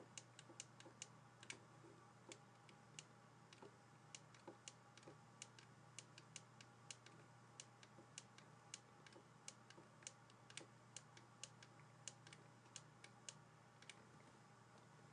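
Faint, irregular clicks of a stylus tapping on a pen tablet while writing, a few per second, over a low steady hum.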